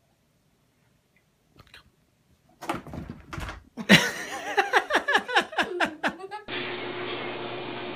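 A plastic laundry basket knocks over and clatters onto the carpet, followed by a girl's burst of shrieking laughter in short falling cries. At about six and a half seconds the sound cuts to a steady hiss with a low hum.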